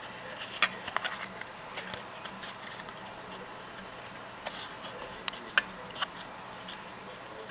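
A few scattered light clicks and taps of plastic iPhone 3G back housings being handled, over a faint steady room hum.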